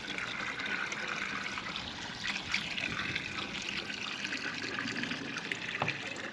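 Water pouring in a steady stream from a plastic bucket into the neck of a plastic poultry waterer jug as it fills, with a brief knock near the end.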